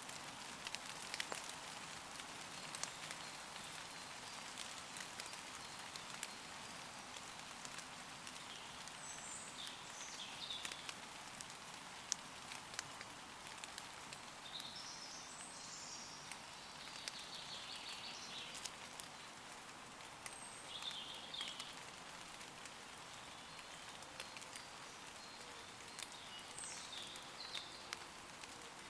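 Steady gentle rain falling on leaves, with individual drops ticking sharply throughout. Woodland birds give short chirping calls several times, around a third of the way in, in the middle, and near the end.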